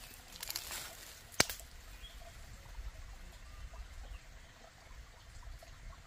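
Faint rustling in dry undergrowth and one sharp click about a second and a half in, over low background rumble.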